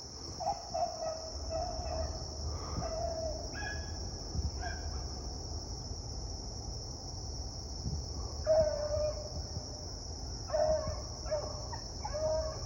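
Beagles baying on a rabbit track: short, high, ringing bays in two bouts with a few seconds' pause between, over a steady chirring of crickets.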